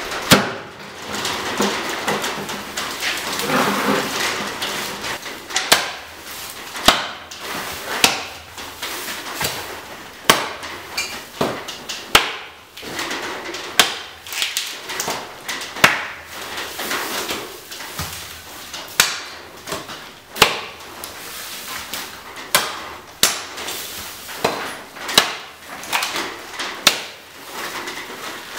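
A two-handed machete of pattern-welded (Damascus) high-carbon steel chopping into the trunk and branches of a small conifer tree: about twenty sharp blows, one every second or so, with rustling and swishing of needled branches between them. The first few seconds hold only the rustling of branches being handled.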